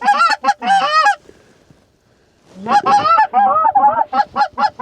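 Canada geese honking and clucking in quick runs of short calls. One run stops about a second in, and another starts after a pause of over a second.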